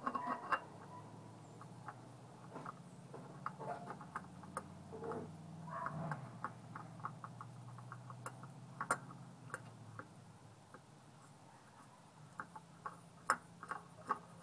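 New WIX spin-on oil filter being screwed onto the engine by hand, giving faint irregular clicks and scrapes. A low steady hum runs underneath.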